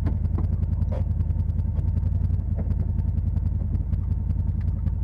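Side-by-side UTV engine running steadily, a low pulsing drone, with a few light knocks.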